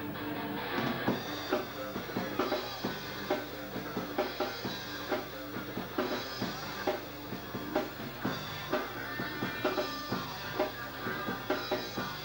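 Punk rock band playing live: the drum kit keeps a steady, hard-hit beat under electric guitar and bass in an instrumental stretch without vocals.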